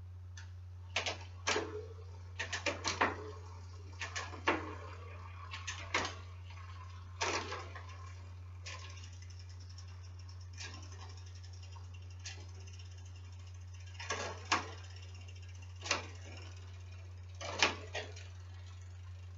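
Bicycle being run through its gears on a freshly wax-lubed chain: scattered sharp clicks from the shifters and derailleurs as the chain moves across the cogs and chainrings, some in quick runs, with a pause in the middle. A steady low hum runs underneath.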